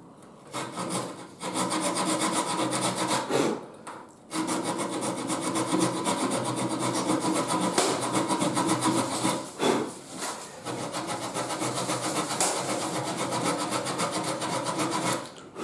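Small hand saw cutting a cabinet board in quick, even back-and-forth strokes, stopping briefly about a second, four seconds and ten seconds in.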